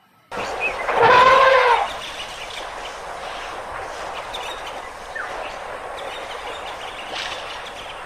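Recorded elephant trumpeting: one loud, brassy call about a second in, lasting under a second, then a steady background hiss.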